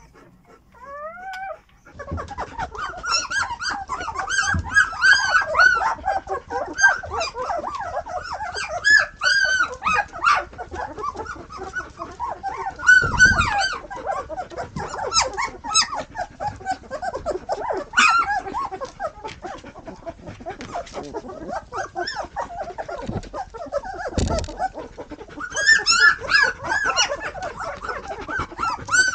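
A litter of Dutch Shepherd puppies whining and yipping, many short high cries overlapping almost without a break from about two seconds in. A few dull thumps come through the crying.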